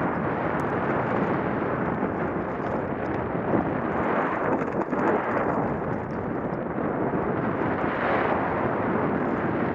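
Wind rushing over a rider-mounted camera's microphone at speed, mixed with the rumble and rattle of a downhill mountain bike's tyres and frame on a dirt and gravel trail.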